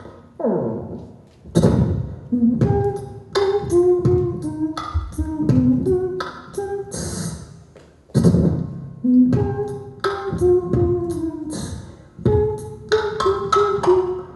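Vocal beatbox: a fast run of mouth-made percussion hits and short pitched notes, with deep falling bass sweeps opening a phrase near the start and again about eight seconds in.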